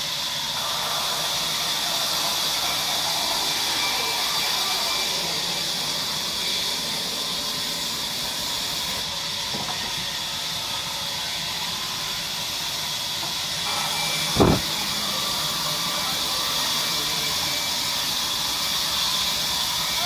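Large sawmill band saw running with a steady hiss. A single heavy thump comes about two-thirds of the way through.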